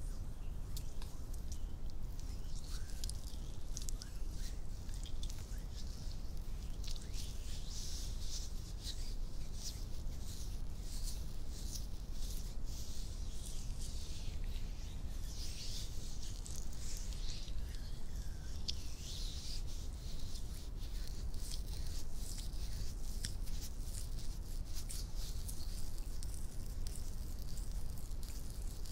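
Close-miked hands rubbing and sliding against each other, skin on skin, with many small sharp clicks and scratches from long fingernails, over a steady low hum.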